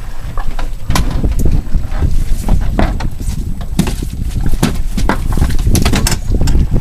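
Irregular knocks and slaps as a leopard shark in a landing net is handled on a boat deck, over a steady low wind rumble on the microphone.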